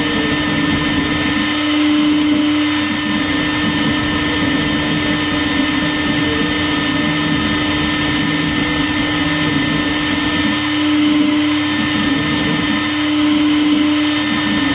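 ShopBot CNC router's spindle running with a steady hum while a pointed V-bit carves lettering into a taped wooden board. The level swells slightly a few times as the cut moves along.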